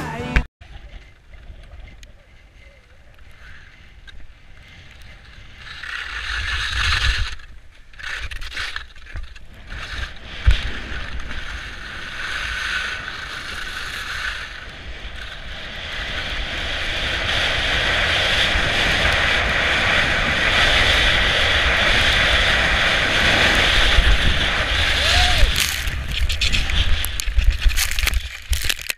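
Skis running over snow with wind buffeting the helmet camera's microphone, a steady hiss and rumble that grows louder about halfway through as speed builds. Near the end, rough scraping and knocks as the skier goes into pine branches and snow.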